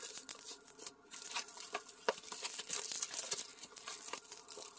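Rolled diamond painting canvas with its clear plastic film cover being handled and rolled back the other way, the film crinkling in faint scattered crackles.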